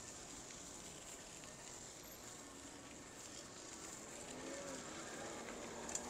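Faint, steady street ambience: distant traffic and open-air noise, with a thin high whine throughout and a faint pitched sound about four to five seconds in.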